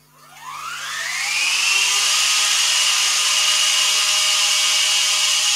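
Kenwood Cookeasy Platinum food processor's motor and blades starting a high-speed blend of peeled roasted pepper: a whine rises over the first second or two, then holds steady at full speed.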